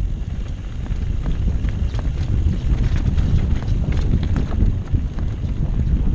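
Mountain bike descending a rough dirt trail: the bike rattling and knocking irregularly as the tyres run over dirt and stones, under a constant rumble of wind on the microphone.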